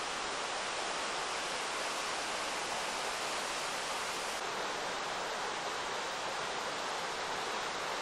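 Mountain stream rushing over rocks: a steady, even rush of water with no breaks, a shade duller in its hiss after about four seconds.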